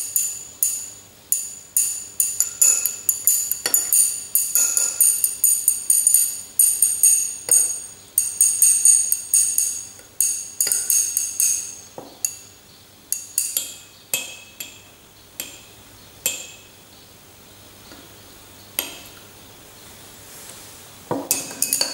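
Glass stirring rod clinking against the inside of a glass beaker as a solution is stirred, a few bright ringing clinks a second. The clinks thin out after about thirteen seconds, stop for a few seconds, and start again near the end.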